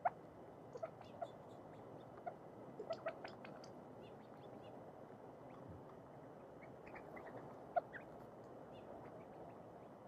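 Quail and doves pecking birdseed off a concrete patio: scattered sharp taps and clicks, the loudest just after the start and again about eight seconds in, over a faint steady hiss.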